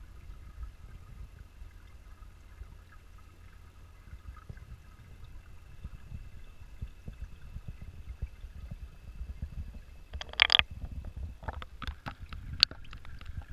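Muffled low rumble heard underwater through a GoPro's sealed housing sitting in a garden pond, with faint steady tones above it. Near the end comes a short loud rush of noise, then a run of knocks and clicks as the camera is handled and brought up to the water's surface.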